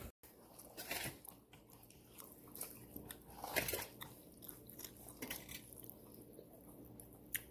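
A person eating chicken close to the microphone: irregular crunchy bites and chewing, with the loudest crunch about halfway through.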